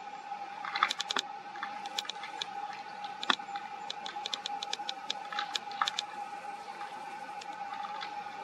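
Fallow deer bucks sparring: their palmate antlers clack and rattle together in quick, irregular clicks, some sharper than others. A steady faint tone runs behind them.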